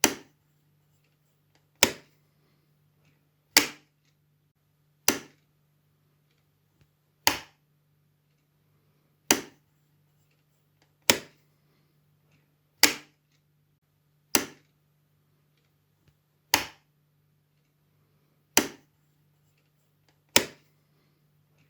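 A wall light switch being flipped on and off, giving single sharp clicks, twelve in all, one every one and a half to two seconds.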